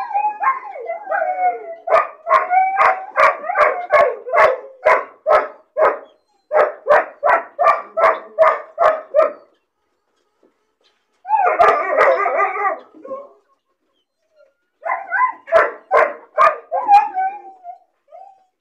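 Puppy crying and barking out of loneliness: a wavering whining cry, then fast runs of high yaps, about three a second, broken by short silences. A brief yowling burst comes about two-thirds of the way in, and a few more yaps and a whine come near the end.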